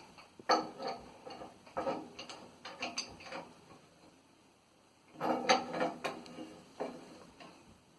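Metal clinks, scrapes and ratcheting clicks of hand tools working on a water heater's pressure relief valve fittings, in irregular bursts with a quiet pause in the middle.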